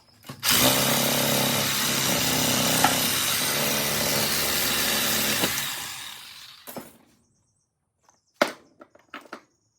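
Power saw cutting into a microwave magnetron: the saw starts about half a second in, runs steadily for about five seconds, then winds down. A few sharp knocks follow near the end.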